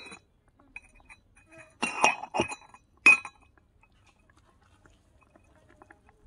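Small stainless-steel cup clinking several times as it is handled and set down, each clink with a brief metallic ring; the loudest clink comes about three seconds in.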